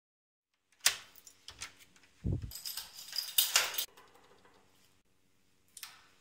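Door and lock handling: a sharp latch click, then a door thudding shut and a loud jangle of keys. Near the end a shorter click as a lift's swing door is pulled open.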